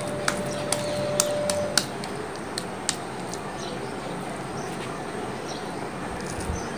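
Raw spiced minced meat being pressed and patted into a kabab patty between the hands, with a few sharp clicks in the first two seconds and a brief steady tone, over a steady background hiss.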